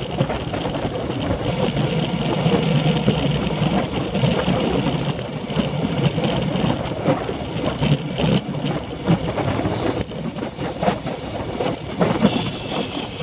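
Steady wind buffeting and road rumble picked up by a Shimano CM-1000 action camera mounted on a road bike rolling along a paved path, with a few sharp knocks along the way.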